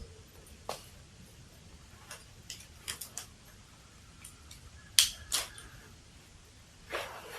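A few scattered sharp clicks and knocks: one about a second in, a cluster around three seconds in, the loudest pair about five seconds in, and a longer, softer rustle near the end.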